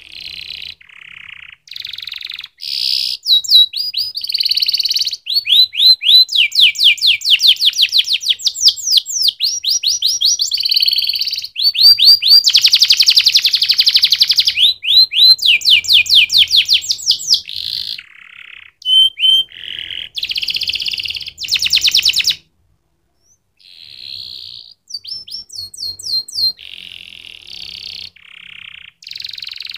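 Domestic canary singing a long, loud song of rapid trills and rolling repeated notes, the phrases changing every second or two, with a brief pause about three-quarters of the way through.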